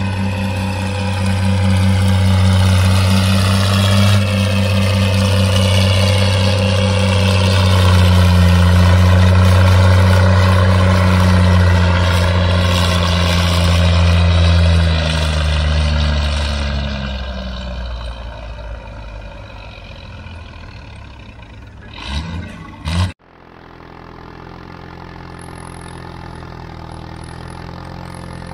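Antique farm tractor engine working hard, pulling a weight sled, with a loud steady low note for most of the first half, then fading away. About 22 seconds in there is a brief clatter, and the sound then changes suddenly to a quieter, steady low engine hum.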